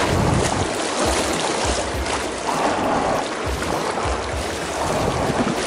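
River water rushing and slapping against a packraft as it is paddled down choppy current, with irregular low thumps under the steady rush.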